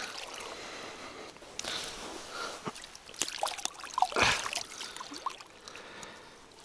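Water trickling and splashing, with scattered small knocks and rustles and one louder burst of noise about four seconds in, as a freshly landed double catch of burbot is handled.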